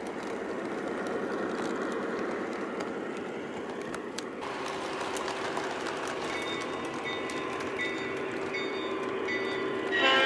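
O scale model work train rolling along three-rail track, its wheels and motor making a steady rumble, with a steady hum joining in about halfway through.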